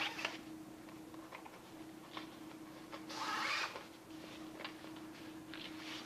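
Bungee cord being drawn through the nylon tabs of a BCD wing's air cell: one louder rasping pull of under a second about halfway through, among light rustles and clicks of the fabric being handled.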